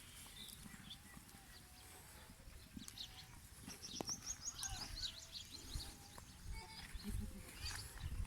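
Faint goat-pen sounds: goats moving and calling quietly, with a quick run of high chirps about four seconds in and some low thuds near the end.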